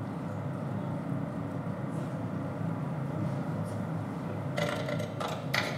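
Low, steady rumbling drone from the performance's soundscape, joined by crackling, glitchy noise about four and a half seconds in.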